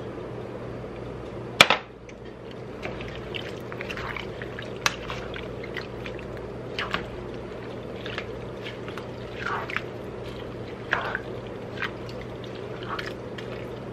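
A plastic spoon stirring chopped cabbage and raw hamburger in water in a skillet: wet sloshing with scattered small clicks and short scrapes against the pan. There is a single sharp knock about a second and a half in.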